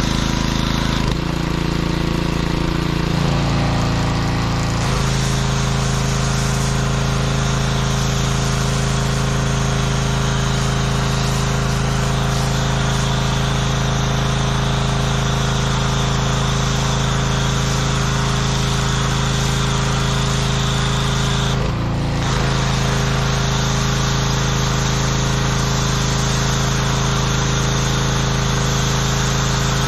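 Pressure washer engine running steadily while a foam cannon sprays soap, with a constant hiss of spray over the engine note. The engine note shifts in the first few seconds, then holds, with one short dip about three quarters of the way through.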